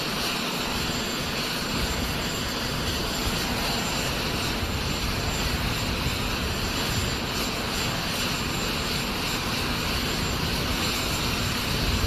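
Jet aircraft engines running at a steady level on an airfield: an even, unchanging rush of noise with a constant low hum under it.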